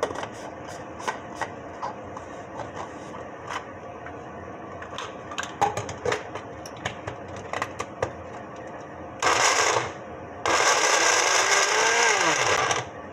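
Small personal blender mincing peeled garlic cloves. Clicks and knocks as the plastic cup and blade lid are fitted and set on the base come first. The motor then runs in two bursts, a short one about nine seconds in and a longer one of about two seconds that winds down with a falling whine near the end.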